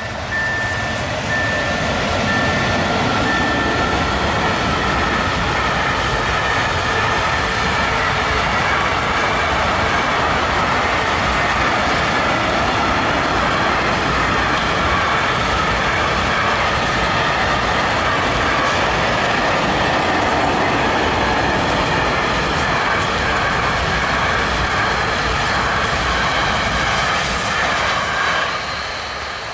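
Freight train of tank wagons hauled by an electric locomotive passing close by: a loud, steady rumble and rattle of wheels on the rails, with a faint ringing whine. An on-off beeping tone runs through the first few seconds, and the sound drops off near the end.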